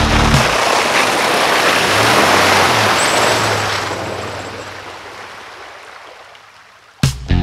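Third-generation Toyota 4Runner driving through a muddy puddle: a loud rush of splashing water over the engine's hum, which rises briefly as it pushes through, then the sound fades as the truck passes.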